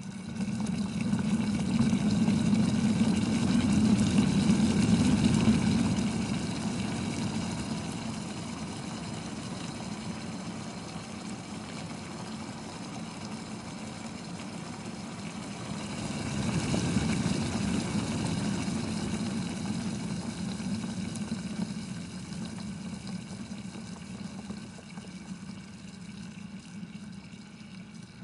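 Water boiling at a steady, turbulent bubble, loudest in the first few seconds and swelling again about two-thirds of the way through before easing off.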